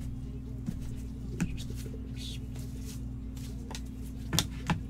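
Gloved hands handling cards and paper at a table: light taps and a brief rustle over a steady low hum, with two sharper clicks near the end.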